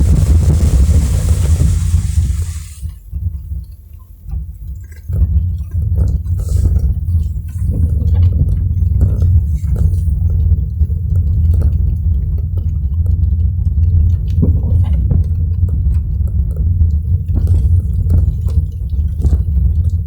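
Car cabin sound while driving in the rain: a steady low road rumble with scattered taps of raindrops, and a hiss of water spray over the first two seconds. The rumble drops away briefly about three seconds in, then returns.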